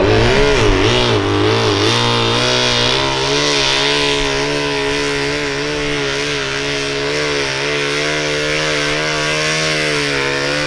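Modified 1500cc-class garden pulling tractor's engine running at high revs under full load while dragging a weight-transfer sled. The pitch wavers for the first couple of seconds, then holds steady.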